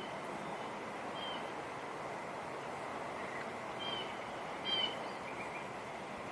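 Steady wind noise outdoors, with a few short bird chirps over it. The loudest chirp comes about three quarters of the way through.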